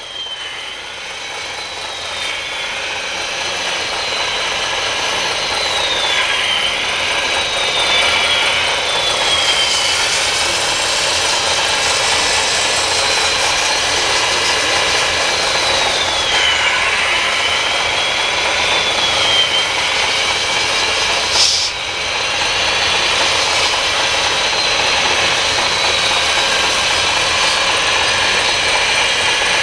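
Electric motors and gearing of radio-controlled model construction machines whining, the whine sliding up and down in pitch as the machines are worked, over a steady high hiss. It swells in over the first several seconds, and there is one sharp click about twenty-one seconds in.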